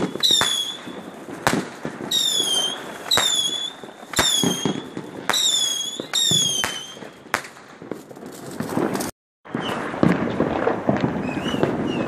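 Whistling fireworks going off about once a second, each a sharp crack and a shrill whistle that drops in pitch and then holds briefly. About three-quarters of the way through the sound cuts out for a moment, and what follows is a rushing noise with faint distant pops and chirps.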